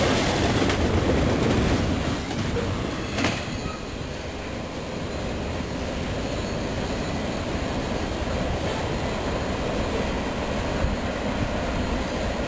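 Tail end of an intermodal freight train rolling past on the rails, its wheels clattering, with a sharp clank about three seconds in. The rumble then drops away as the train moves off, leaving a lower steady noise.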